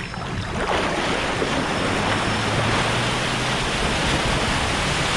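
Steady rush of water and wind from a moving wakeboard towboat, a G23, with a faint low engine hum under it; the rush swells about half a second in and then holds steady.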